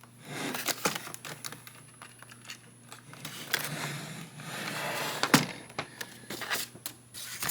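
Paper and cardboard packaging being handled as an instruction manual is looked through: soft rustling with scattered light clicks and one sharper tap about five seconds in.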